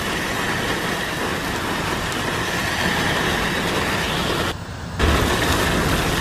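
Heavy rain pouring on a paved road, a steady hiss, with car tyres swishing through the standing water. The sound drops out briefly about four and a half seconds in, then comes back louder.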